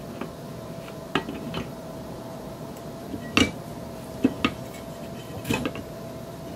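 M14 barreled action clinking and knocking against its stock as it is slid and seated into place by hand: a handful of sharp metal clicks and knocks, the loudest about three and a half seconds in.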